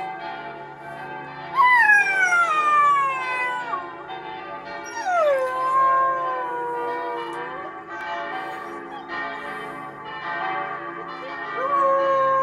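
Siberian husky howling along with ringing church bells. There are three long howls, each sliding down in pitch and then held, over the steady, overlapping tones of the bells.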